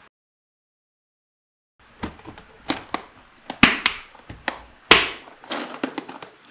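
Silent for about the first two seconds, then a quick run of sharp plastic clicks and knocks: a clear plastic tackle box's lid pressed shut and its row of plastic latches snapped closed, with the box knocking on a wooden bench.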